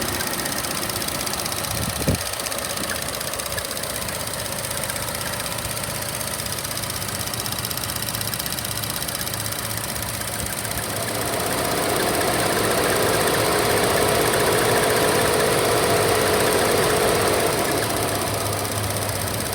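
2014 Chevy Sonic's 1.4-litre turbo engine running with the air conditioning on, carrying the bird-like chirping squeal that comes with the AC. There is a sharp click about two seconds in, and a louder mid-pitched hum swells about eleven seconds in and fades near the end.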